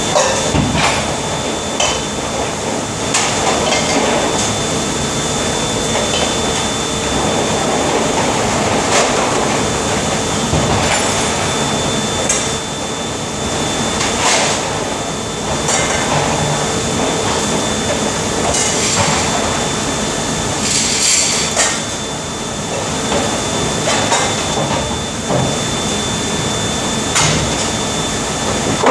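Dishes, trays and plastic racks clattering and knocking in a stainless steel sink during hand dishwashing, in irregular bursts over a steady mechanical hum.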